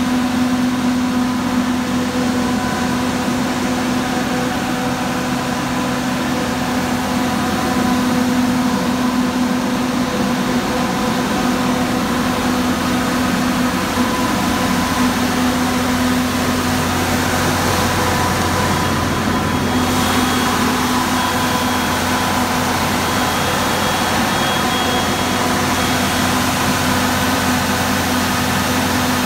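2011 Caterpillar diesel generator set running at a steady speed, its diesel engine giving a constant drone with a steady hum.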